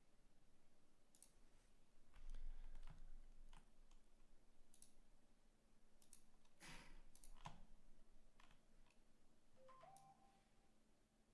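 Faint, scattered clicks and taps of a computer mouse and keyboard being worked, with a soft low thump about two seconds in and a louder cluster of clicks near the middle.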